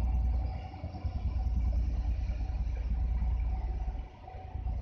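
A D.445 diesel locomotive pulling a train of coaches away, its engine and the rolling carriages making a steady low rumble that dips about four seconds in.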